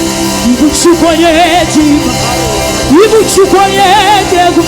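Live gospel music: a singer's voice with a wide vibrato over steady instrumental accompaniment, with two short high accents, about a second in and just after three seconds.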